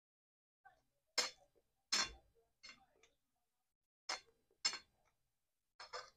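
Metal spoon clinking and scraping against a ceramic plate while scooping rice: a string of short, sharp clinks in irregular pairs, loudest about a second and two seconds in.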